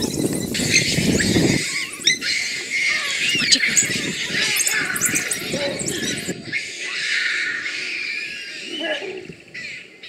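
A pack of excited African wild dogs twittering and squealing in a dense high-pitched chorus, mixed with the screams of baboons trapped in a tree. A low rumble under it cuts off about a second and a half in.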